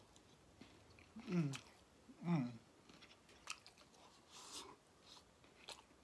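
Close-up mouth sounds of a person eating fried fish: wet chewing and lip smacks, with two short falling vocal sounds about one and two seconds in, as the hot piece is worked around the mouth.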